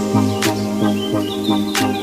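Background music: a quick melody of short notes over a bass line, with two sharp percussion hits.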